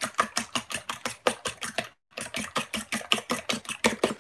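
A fork beating raw eggs in a bowl, clicking against the bowl rapidly and evenly at about seven strokes a second, with a very brief break about two seconds in.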